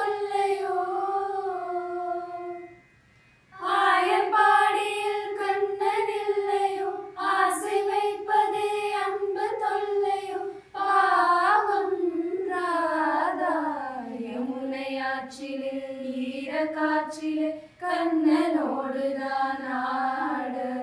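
A group of young women singing a melody together in unison, without instruments, in phrases with brief pauses between them.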